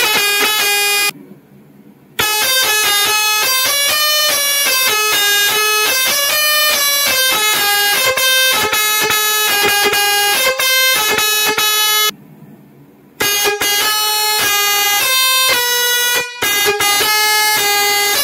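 Six-trumpet electric musical horn (Hexa bugle horn) playing a melody, loud pitched horn notes stepping quickly from one to the next, with two pauses of about a second between phrases.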